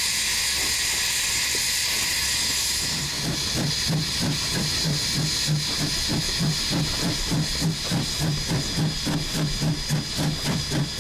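1910 Swedish E2 steam locomotive under way: a steady hiss of steam for about the first three seconds, then regular exhaust chuffs set in and gradually quicken as it works along the line.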